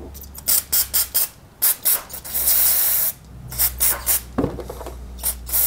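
Aerosol carb cleaner sprayed through a straw onto a chainsaw carburetor's fuel-line connectors to degrease them: several quick spurts, then a long hiss, more short spurts, and another long hiss near the end.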